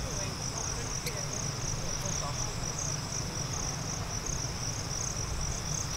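Insects calling in a steady, high-pitched pulsing trill, with a low rumble beneath.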